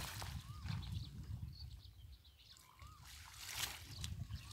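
Water sloshing and splashing as a person wades chest-deep through a muddy canal, working a gill net, over a low rumble. A faint short rising-falling whistle sounds twice.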